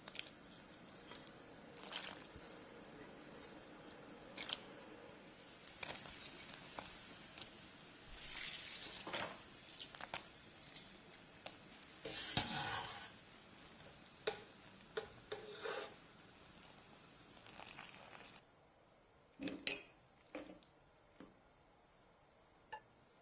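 Kitchen utensils and dishes being handled: scattered clinks, knocks and scraping over a faint steady hiss, which stops about eighteen seconds in, after which only a few separate knocks remain.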